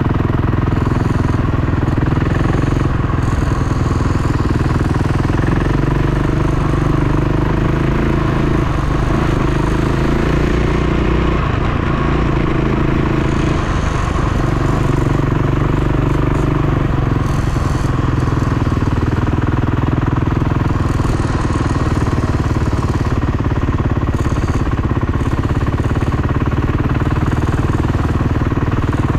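Dirt bike engine running steadily while riding, its pitch wavering a little around the middle.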